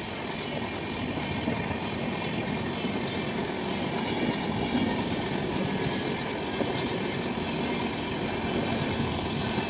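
Indian Railways express train's passenger coaches rolling past at speed: a steady rumble of wheels on the rails, with scattered sharp clicks of the wheels over the track.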